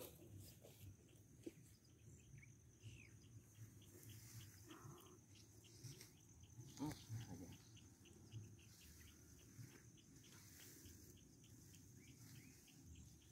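Near silence: faint outdoor quiet with an insect chirping steadily, about three chirps a second, over a faint high insect hiss.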